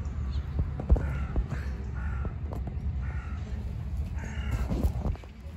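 A crow cawing about five times in short calls, over a steady low rumble.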